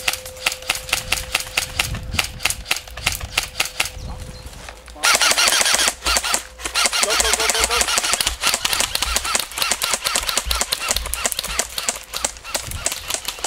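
Airsoft guns firing: a steady run of sharp shots, about four or five a second, that turns denser and louder about five seconds in.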